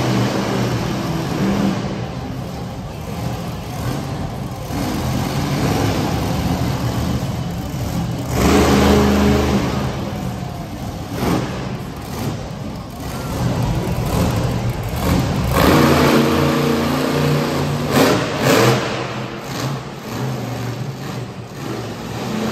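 Monster truck engine revving over and over, rising and falling in pitch, with the loudest runs about eight seconds in and again from about sixteen to nineteen seconds.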